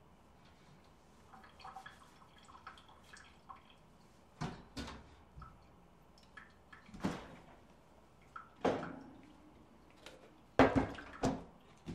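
Kitchen foley around a sink and cupboard: irregular knocks, clunks and light clinks of things being handled and set down. The sounds are scattered and light at first, then six or so heavier knocks follow, the loudest near the end.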